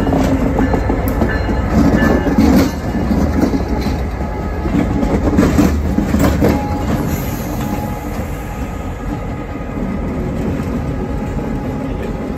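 CSX GP38-3 diesel-electric locomotive rolling slowly past at close range, its EMD 16-cylinder 645 diesel engine running with a steady low rumble and its wheels clicking over the rail joints. It is loudest in the first half and grows a little quieter as it moves away.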